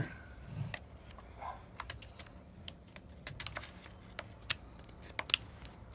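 Light, irregular clicks and taps of a small tool working on the plastic housing of a Husqvarna 455 Rancher chainsaw, as the loose stop-switch ground wire is poked back into its slot.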